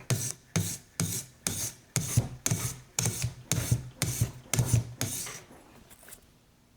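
TSProf Alpha diamond sharpening stone on the guided arm of a TSProf Kadet sharpener, scraped along a knife edge in steady rasping strokes, about two a second, while raising a burr. The strokes stop about five seconds in.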